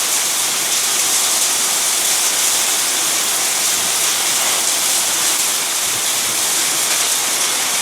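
Heavy hail and rain pelting down in a dense, steady hiss.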